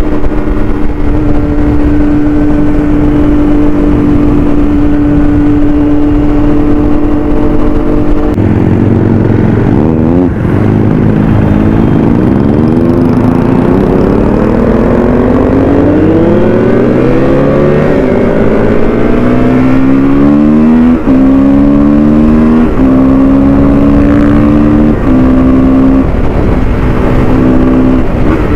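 Triumph Daytona sportbike engine heard from the saddle while riding. It holds steady revs for about eight seconds, drops sharply, then climbs in pitch through long rising pulls, with a run of quick gear changes near the end.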